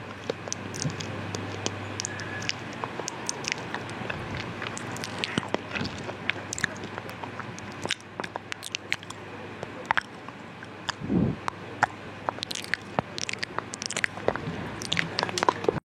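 Mouth sounds: many quick, irregular clicks and smacks of lips and tongue, coming thicker near the end.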